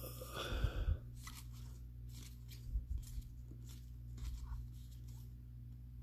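Trading cards being handled and sorted by hand: a few short, faint rustles and clicks, about half a second in, around three seconds and again a little after four, over a steady low hum.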